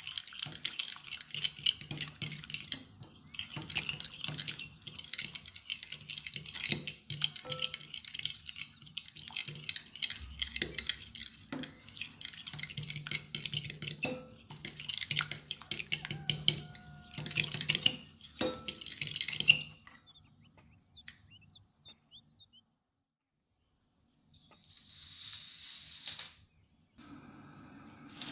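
Fork beating eggs, cream and chopped parsley in a glass bowl, the tines clinking and scraping against the glass in quick, continuous strokes. The mixing stops a little before two-thirds of the way through, and a brief soft hiss follows later.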